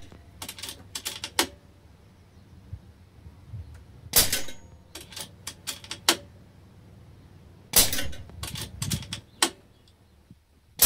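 Air rifle shots at a steel biathlon target in a pellet trap: two sharp reports about four seconds apart, a third right at the end, each followed by a quick run of sharper clicks.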